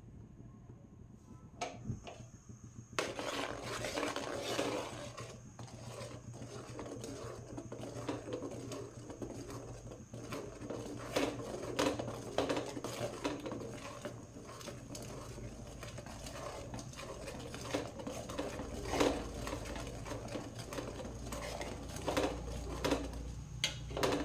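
A metal ladle stirring melting butter in a metal pan, scraping and clinking against the pan's sides and bottom, with frequent sharp clicks. The stirring starts about three seconds in, after a couple of isolated clinks.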